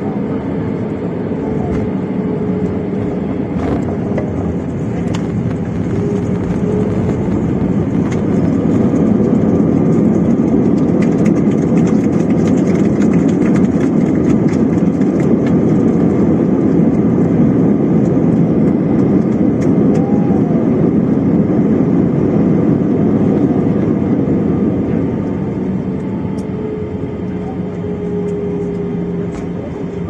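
Airliner jet engines and rushing air heard from inside the cabin during the landing roll on the runway. The noise rises through the middle and eases off near the end as the aircraft slows, with a few small rattles and clicks.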